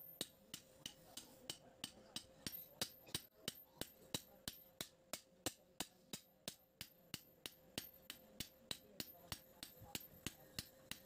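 Hand hammer striking a red-hot spring-steel cleaver blade on an anvil: a steady rhythm of sharp metallic blows, about three to four a second.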